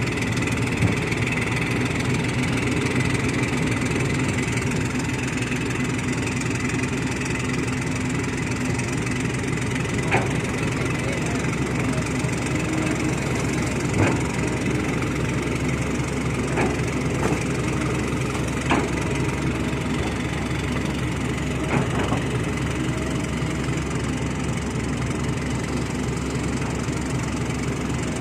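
Heavy diesel truck engines running steadily, with several short sharp knocks scattered through the middle.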